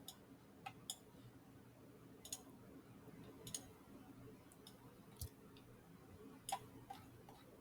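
Faint, irregular computer mouse clicks, about a dozen, over a quiet steady low hum.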